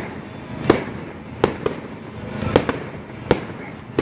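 Aerial firework shells bursting in a series of sharp bangs, about one every second and irregularly spaced, over a continuous background of fainter bursts.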